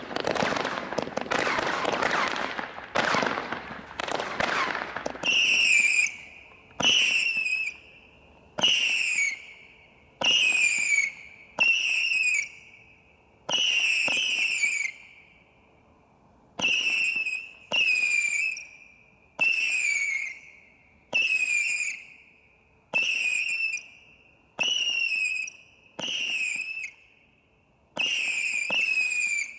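Dense crackling for the first few seconds, from crackling comets, then an 18-shot firework barrage cake firing whistling comets. About fifteen shots come one every one and a half to two seconds, each a launch crack followed by a high whistle of about a second that drops a little in pitch at the end.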